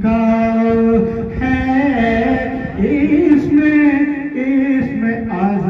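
A man chanting verses from a book into a corded microphone, solo and unaccompanied, in long held notes that waver and glide in pitch, with short breaks between phrases.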